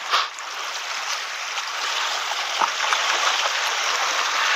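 Seawater trickling and washing among shore rocks: a steady rushing hiss, with a brief louder splash just after the start and a few small clicks.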